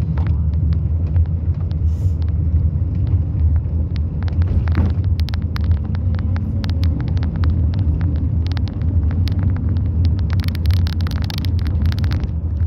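Steady low rumble of a moving vehicle, with frequent short rattles and clicks that come thickest near the end.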